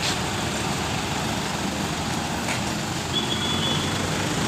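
Toyota Fortuner SUV driving past close by, a steady engine and road noise without breaks.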